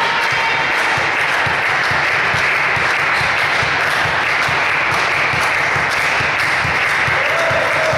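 Spectators applauding, a dense steady clapping in a sports hall, as a volleyball point is won.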